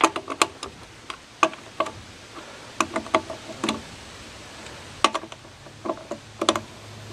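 Hand ratchet with a socket on a pickup's lug nuts, clicking in short bursts of a few clicks at a time, about eight bursts, with light metal clinks as the nuts are worked loose.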